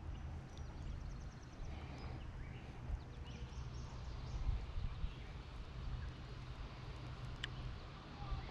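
Outdoor ambience: a steady low rumble, with a short high bird trill about half a second in and a single sharp click near the end.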